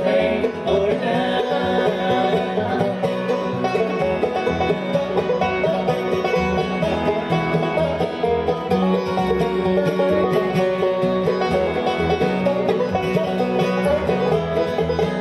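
Bluegrass band playing live: fiddle, banjo, mandolin, acoustic guitar and upright bass together, with the banjo prominent over a steady bass beat.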